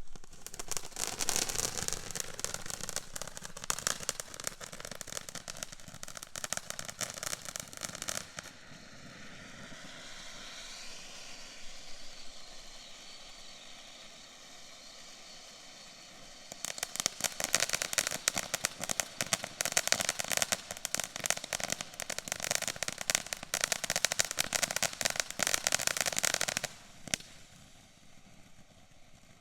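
Small dinosaur-shaped novelty firework going off: a long run of rapid crackling, a quieter hissing spell, then a second loud run of crackling that cuts off suddenly, followed by a single pop.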